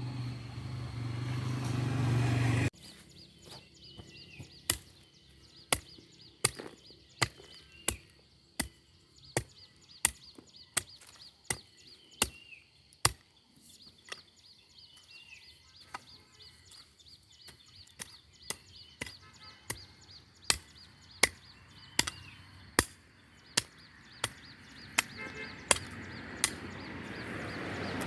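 A steady noise with a low hum that grows louder and cuts off abruptly about three seconds in, then a long series of sharp chopping strikes at an uneven pace of about one a second, with birds chirping faintly between them.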